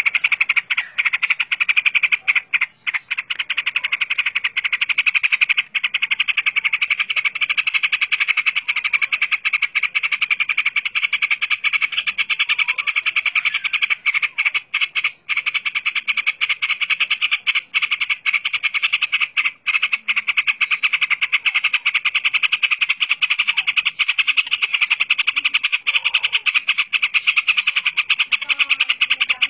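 Caged yellow-vented bulbul (trucukan) singing over a continuous, rapidly pulsing high trill that never pauses, broken only by a few brief gaps.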